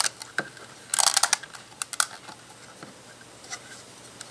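LEGO bricks clicking as hands press plates down onto a brick assembly to seat the studs: a single sharp plastic click, then a quick cluster of clicks about a second in, another near two seconds, and a few faint ticks after.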